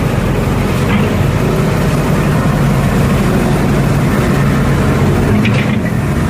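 Backhoe's diesel engine running steadily with a low hum.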